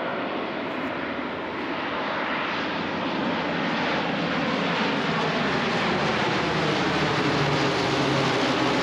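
C-130 Hercules four-engine turboprop flying low overhead on its landing approach. A steady propeller-and-engine drone grows slowly louder and drops in pitch as it passes.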